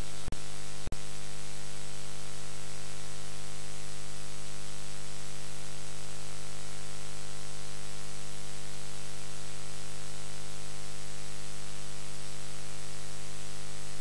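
Steady electrical static hiss with a low hum and faint steady tones, with no voices; it cuts out twice, very briefly, within the first second.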